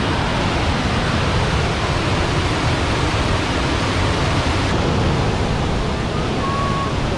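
Tahquamenon Falls' water pouring over the falls: a loud, steady rush of white-water noise.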